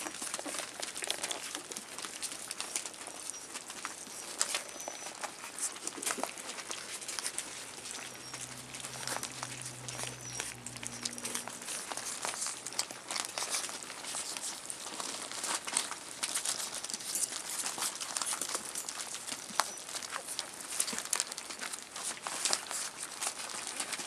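Newspaper crinkling and rustling under the paws of young rough collie puppies as they crawl about and feed, with many small clicks and crackles throughout.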